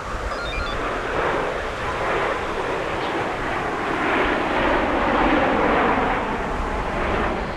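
An aircraft flying past during an air show display. Its noise swells steadily to a peak about five seconds in, then begins to ease.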